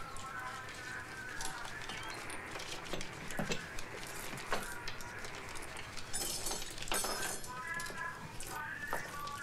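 Crockery and cutlery clinking at a table in a run of scattered small clicks, with indistinct high voices near the start and again toward the end.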